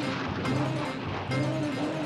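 Background cartoon score: a short, lilting melodic phrase that rises and falls, played over and over above a low sustained note.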